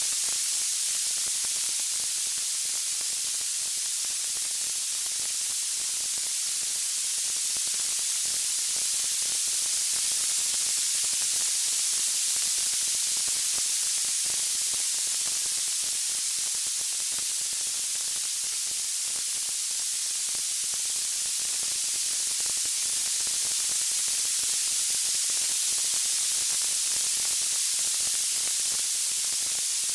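Steady high hiss like white noise, swelling and ebbing slowly in level, with no crackles or pops standing out.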